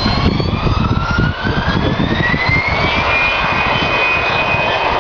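Airliner jet engines spooling up to takeoff thrust: a whine rises steadily in pitch for about three seconds and then holds at a steady high tone, over a loud low rumble.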